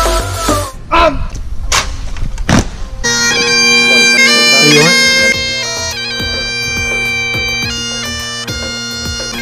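Bagpipes playing a tune over their steady drones, cutting in abruptly about three seconds in. Before that, other music with a beat and a few sharp hits.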